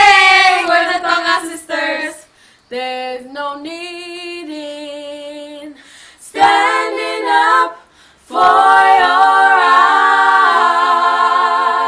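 Female vocal group singing a cappella, opening a gospel song. After a softer passage in the middle, they end on a long held chord.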